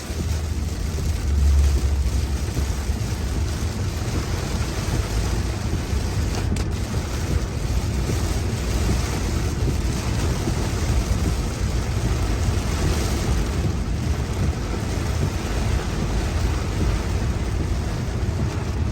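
Steady rush of heavy rain and wet road noise heard from inside a moving car, with a deep low rumble underneath and a brief low bump about one and a half seconds in.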